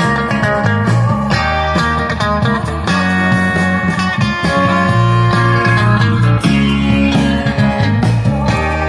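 Multitrack recording of a rock band playing back through an analog mixing console: electric guitar, bass and drums. Individual channels, among them the bass and the horns, are switched in and out with the console's mute buttons as the mix is checked.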